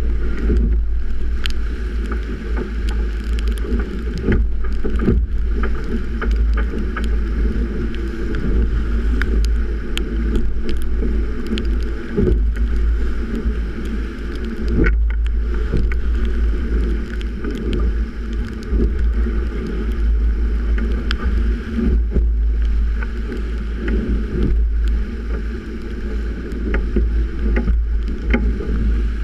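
Strong wind buffeting the microphone in a heavy, steady rumble, over the rush and splash of rough water along the hull of a Melges 24 sailboat driving hard and heeled. Many short sharp knocks and slaps of waves and spray are scattered through it.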